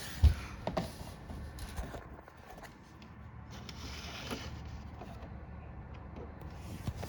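Small clicks and knocks over a low steady hum, the loudest knock about a quarter second in, with a few more through the first two seconds.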